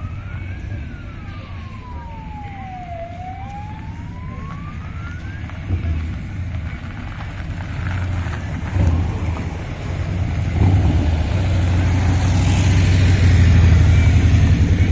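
A siren wails slowly up and down, stopping about five seconds in. Then the low rumble of trike and motorcycle engines builds as they ride past, loudest near the end.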